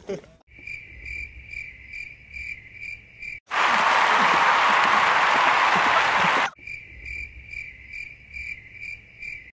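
Cricket chirping, about three chirps a second, starting and stopping abruptly like an edited-in sound effect. In the middle it is cut off by about three seconds of loud, even rushing noise like applause or cheering, then the chirping comes back.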